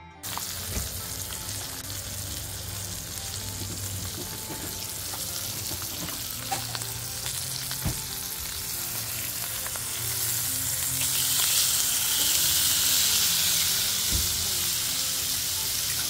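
A steak sizzling on a hot ridged griddle plate, a steady frying hiss that grows louder about two-thirds of the way through, with a few light clicks.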